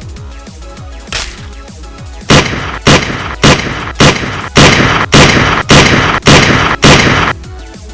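A string of about nine loud gunshot bangs, roughly two a second, starting about two seconds in, over electronic background music.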